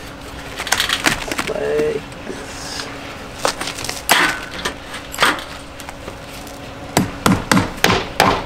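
Wire netting rattling and clicking as it is handled, then, about a second before the end, a quick run of hammer strikes, about three a second, fastening stucco wire to the wall.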